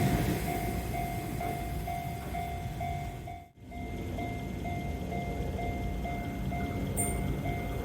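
Japanese level-crossing warning bell ringing steadily, a little over two dings a second, while the noise of a passing train fades away. The sound drops out briefly about halfway, and the bell carries on.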